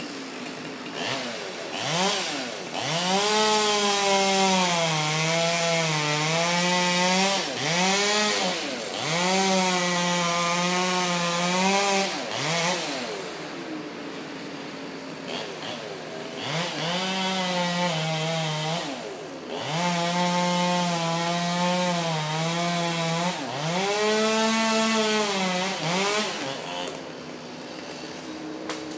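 Chainsaw revving and cutting wood in several long passes, its pitch sagging under load and rising again between cuts. It drops back to a quieter idle about halfway through and again near the end.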